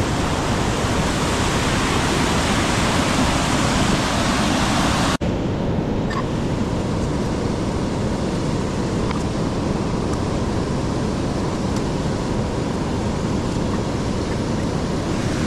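Steady rushing of a waterfall running high after two days of rain. There is a short break about five seconds in, after which the rush carries on slightly duller.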